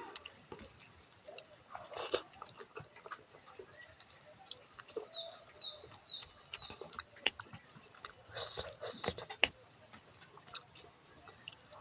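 Close-up eating sounds of rice mixed with stinging-nettle soup: wet chewing, lip smacks and small slurps coming in irregular clicks. About five seconds in, a quick run of about five short, high, falling chirps.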